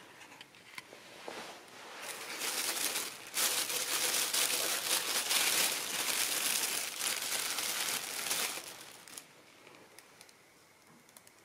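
Thin plastic shopping bags crinkling as hands open them and reach inside, loudest from about two and a half to eight and a half seconds in. The crinkling dies down about nine seconds in, leaving a few faint ticks.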